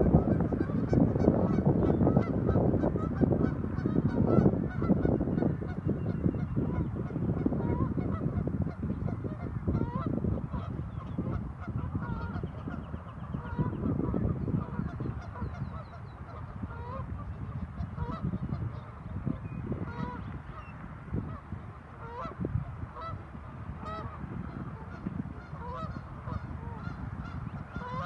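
A flock of waterbirds calling: many short, overlapping calls over a dense low noise that eases off a little about halfway through.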